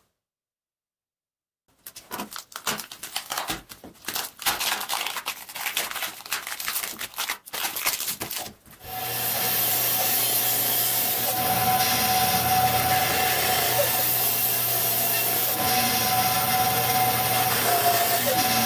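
Several seconds of irregular scraping noise, then from about nine seconds in a bandsaw runs steadily, its blade cutting through a blank of cast blue epoxy resin and wood, with a steady whine over the cutting noise.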